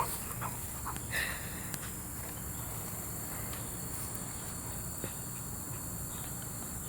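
Quiet outdoor ambience: a steady insect drone, with a low background rumble and a few faint ticks.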